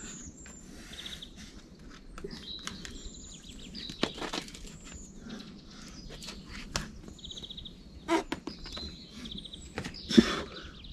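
Small birds chirping and trilling high up, over short scuffs and sharp breaths from a boulderer moving on the rock. The loudest of these come about four, eight and ten seconds in.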